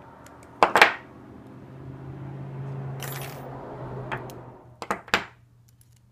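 Rail being slid out of the molded plastic ties of a curved HO scale sectional track: a long scraping rattle as the rail drags through the tie spikes, with sharp clicks a little under a second in and a few more near the end.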